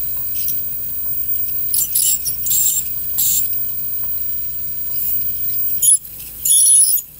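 Piezoelectric ultrasonic scaler with a slim 1S tip scaling deposits off a plastic typodont tooth: a high-pitched scratchy squeal with a hiss that surges and fades, dropping out briefly near the end. This squeal comes from the vibrating tip on the typodont's plastic and is not heard when the scaler is used on real teeth.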